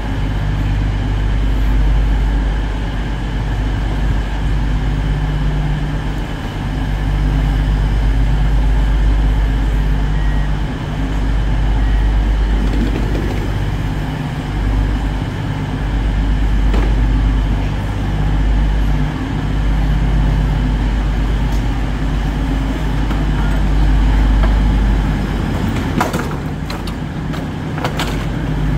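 Diesel engines of an EMR Intercity train idling at the platform: a steady low rumble and hum. Near the end, a few sharp knocks as a metal boarding ramp is set down at a door.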